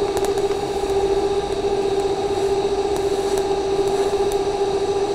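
TIG welding arc on steel tubing from an Everlast Lightning 275 multiprocess welder, running steadily: a constant buzzing hum over a hiss, with a few faint ticks.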